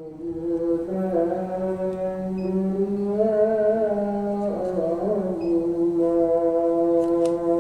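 Background music of slow, sustained brass-like notes whose chord shifts about halfway through.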